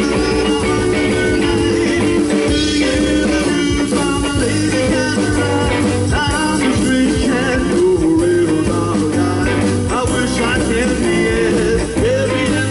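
Live rockabilly band playing an instrumental passage: electric guitars over drums and bass, with a guitar line bending notes.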